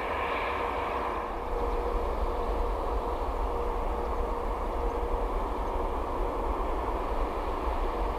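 Airbus A380 on final approach, its four jet engines heard from afar as a steady rumble with a faint hum, growing a little louder about a second and a half in.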